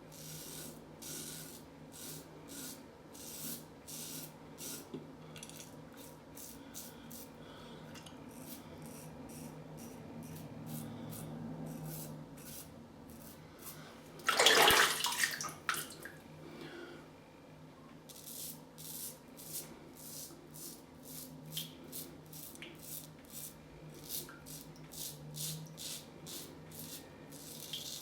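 Gillette Tech safety razor scraping through lathered stubble in short, repeated strokes, each one a dry rasping scratch. A brief, louder rush of noise comes about halfway through.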